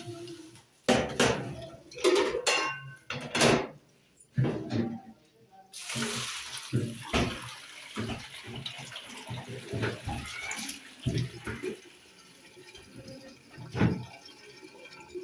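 Kitchen tap running, with hollow knocks of a plastic colander being handled and rinsed under it. From about six seconds in, a steel pot of boiled noodles is tipped into the colander in the sink: water splashing and draining through, with clanks of the pot.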